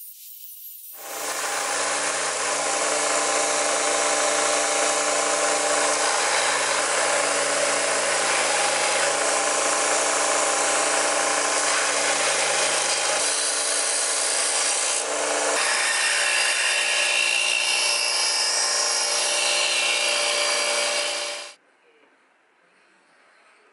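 Power grinder running steadily with the rasp of abrasive grinding a steel saw-blade blank, its tone shifting slightly twice before cutting off suddenly near the end.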